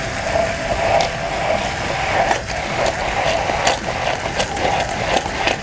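Hand-held stick blender running steadily in a tall narrow beaker, emulsifying almond alioli as oil is added a little at a time; the sauce is starting to thicken. Scattered sharp clicks sound over the motor.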